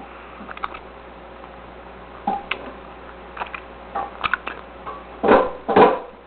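Kitchen handling noise: scattered light clicks and knocks of utensils and dishes, then two louder short noisy bursts about half a second apart near the end.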